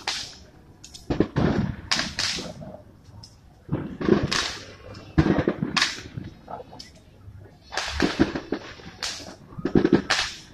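Fireworks going off: an irregular run of sharp cracks and bangs, about two a second, each trailing off in a short echo.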